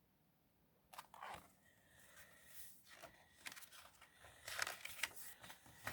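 Soft, scattered rustling and crinkling of paper, such as the pages of a picture book being handled, starting about a second in after dead silence.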